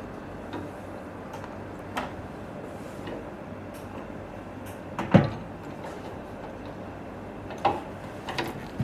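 A few knocks and clicks of equipment being handled, the loudest a single thump about five seconds in and several more near the end, over a steady background noise.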